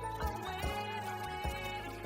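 Pop/R&B music: a bass and kick-drum beat under held, sliding melody lines.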